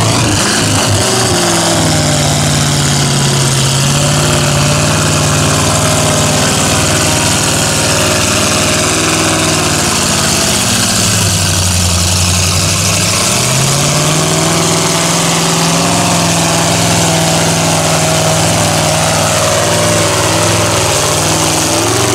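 A mud-bog truck's engine is held at high revs as the truck plows through a deep mud pit, with mud and water splashing around it. About ten seconds in the revs sag, then climb back up a few seconds later and hold steady.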